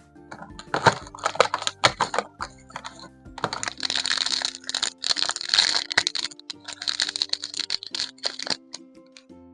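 Plastic toy packaging being handled and opened, a quick run of sharp crackles and clicks, then three longer stretches of crinkling, over soft background music.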